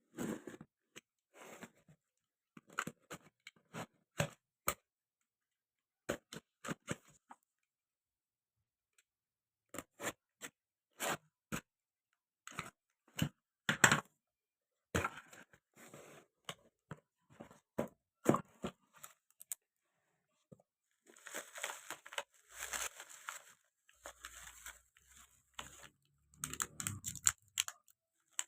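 Packaging being handled and opened by hand: scattered sharp clicks and taps, then from about two-thirds of the way in a denser stretch of rustling and tearing packaging.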